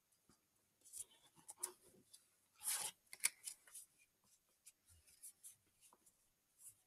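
Faint handling of Pokémon trading cards and their packaging: a scattering of soft scrapes and ticks, with a brief rustle nearly three seconds in.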